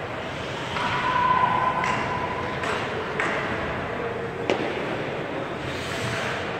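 Ice hockey rink sounds: sharp clacks of sticks and puck against the ice and boards, the sharpest about four and a half seconds in, over the echoing noise of the arena, with a held call about a second in.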